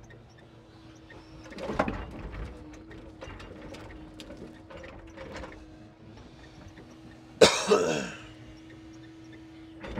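Timber crane loading logs onto a logging truck, with a steady hum from the running crane hydraulics. Logs clatter and knock as the grapple sets its bundle on the load about two seconds in, and about seven and a half seconds in there is a single sharp bang that rings off with falling tones.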